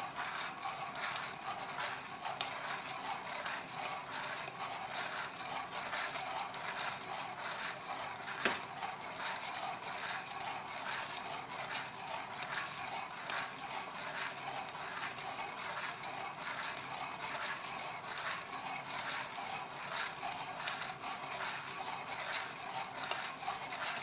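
Coffee beans rattling inside a hand-held 煎り上手 roaster shaken back and forth in a steady rhythm over a gas flame, with scattered sharp pops as the beans go through first crack.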